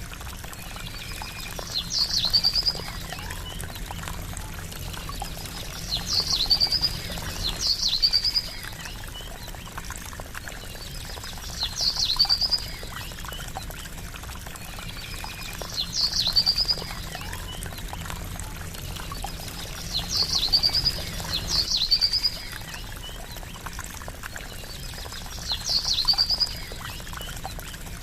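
Steady trickling water, with a short high bird call, a sharp chirp followed by a quick trill, repeating about every four seconds and sometimes twice in close succession.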